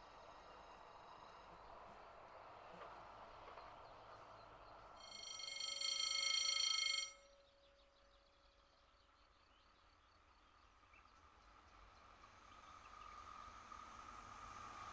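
A train horn blows one steady note for about two seconds, the loudest sound here, and cuts off sharply. Near the end a BB 75000 diesel locomotive hauling coil wagons is heard approaching, its engine growing steadily louder.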